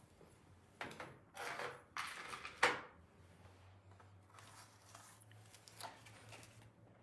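Items being handled on a tabletop: several short rustling, scraping sounds in the first three seconds, the last a sharp knock, then one fainter rustle near six seconds.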